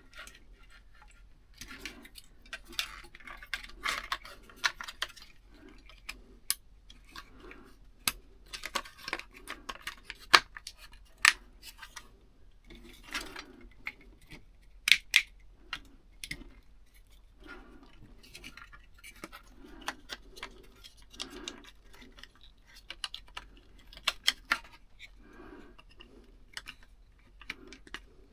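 Hands working on wiring and small parts: scattered sharp clicks and light metallic ticks with short bursts of rustling, irregular throughout.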